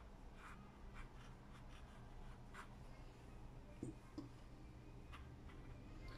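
Faint scratching of a paintbrush on watercolour paper: a few soft, short strokes and light taps, over a low steady hum.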